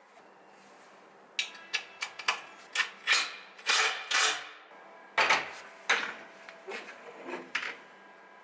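Heavy steel plates and flat steel leg extensions clanking and scraping against each other and a steel workbench as they are handled and fitted together. A series of separate knocks and a few longer scrapes begins about a second and a half in, with a faint metallic ring under them.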